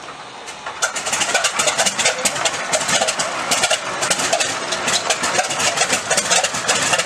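A Grumman TBF Avenger's Wright R-2600 Twin Cyclone 14-cylinder radial engine catching on a cold start about a second in, then running loud and uneven with rapid, irregular popping from the exhaust.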